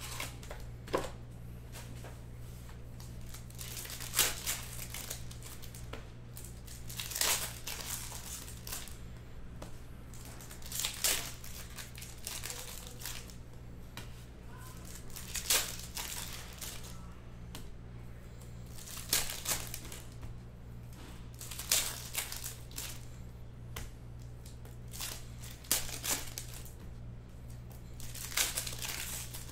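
Foil trading-card packs being torn open and crinkled by hand, a sharp tearing rustle every three or four seconds, over a steady low electrical hum.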